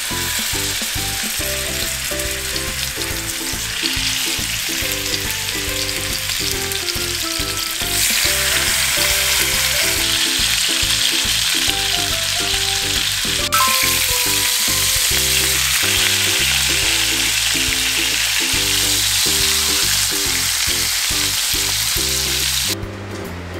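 Beef steaks searing in a hot nonstick frying pan: a steady sizzle that grows louder about eight seconds in and again halfway through, then cuts off abruptly just before the end. Light background music with a bouncing bass line plays underneath.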